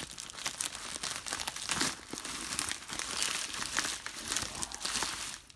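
Plastic poly mailer bag being crumpled and pulled at by hand to get it open: a continuous crinkling full of small crackles.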